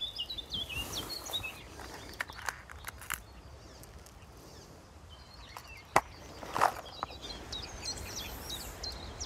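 Small birds singing in short chirps over a steady outdoor hiss, with a few sharp clicks and rustles as fishing tackle is handled; the loudest is a single sharp click about six seconds in.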